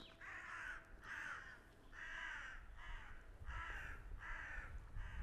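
Crows cawing, a run of about seven harsh caws spaced a little under a second apart.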